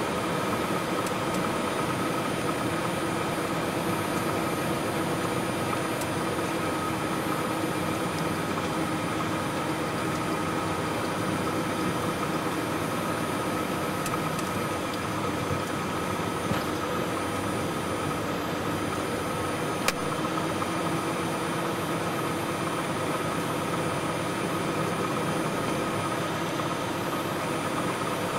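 Light aircraft's piston engine and propeller running steadily at low power, a constant drone heard from inside the cockpit while rolling on the runway after landing, with a single sharp click near the end.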